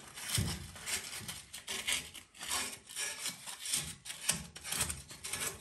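Sandpaper rubbed back and forth over the tip of a gas boiler's thermocouple, a scratchy rasp at about two strokes a second. The thermocouple is being cleaned because the boiler's gas valve keeps shutting off and the burner goes out.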